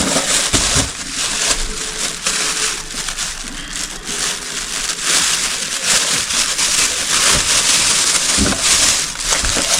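Plastic packaging bag rustling and crinkling as it is handled and opened, with a few soft knocks.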